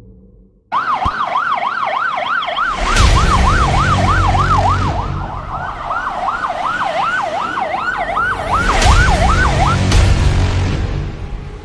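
Electronic police siren in a fast yelp, sweeping up and down about three times a second; it starts suddenly near the start and stops about ten seconds in, over a low vehicle rumble that swells twice.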